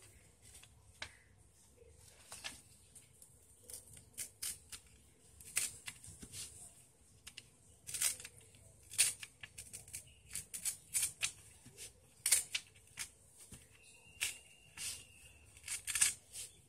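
A sheet of craft paper being folded and creased by hand: an irregular run of short, sharp rustles and swishes as fingers slide and press along the folds. A faint steady high tone sounds for about a second and a half near the end.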